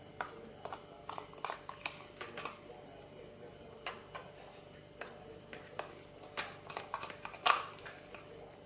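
Plastic spoon clicking and scraping against plastic containers while scooping baby porridge powder and stirring it in a plastic bowl: irregular light taps, the loudest about seven and a half seconds in.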